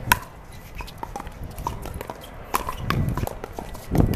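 Pickleball rally: the sharp pock of a paddle striking a plastic pickleball just at the start, followed by several lighter hits at intervals of about a second.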